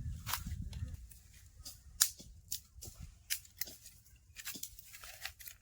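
Dry twigs and leaf litter crackling and snapping in irregular sharp cracks, the loudest about two seconds in.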